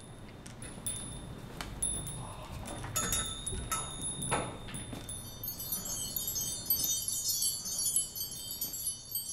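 High tinkling chimes: a few scattered chime notes with some clicks in the first half, then from about halfway a dense, continuous shimmer of high twinkling notes.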